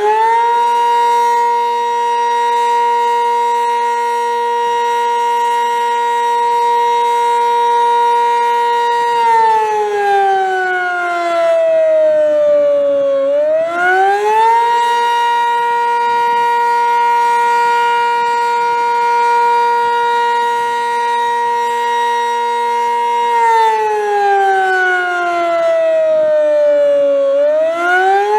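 Sentry 15V2T dual-tone outdoor warning siren sounding loudly in a wailing cycle. Its two tones hold a steady pitch for about nine seconds, drop over about four seconds, then climb quickly back up. This happens twice.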